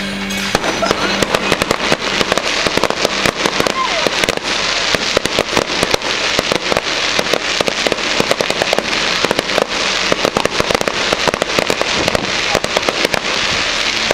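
Fireworks bursting overhead in a rapid, dense barrage of bangs and crackles, starting about half a second in.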